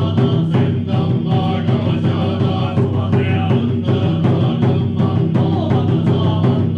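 Shingon Buddhist sutra chanting, a low, steady, droning recitation, over a taiko drum beaten in a quick, even rhythm.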